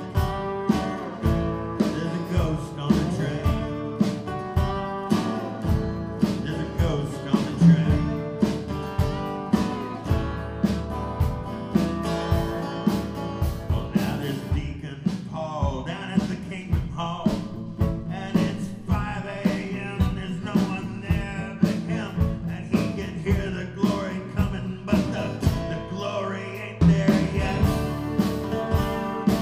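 Live acoustic country-blues band: acoustic guitars strum a steady beat while a lap steel guitar plays gliding lead lines over them, an instrumental break in the song.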